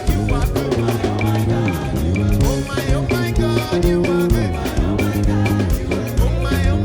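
Upbeat praise dance music from a band: drum kit keeping a steady beat under a moving bass line and guitar.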